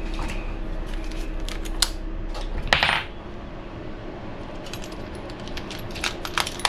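Small metal screws, parts and a tool clicking and clinking on a workbench while an RC buggy's shock mounting hardware is handled. A short scraping rustle comes just before the three-second mark, and a run of quick light clicks near the end.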